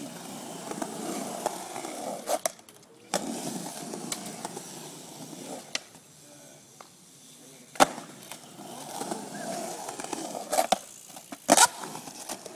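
Skateboard wheels rolling over concrete in spells, broken by several sharp clacks of the board hitting the concrete. The loudest clacks come about eight seconds in and again near the end.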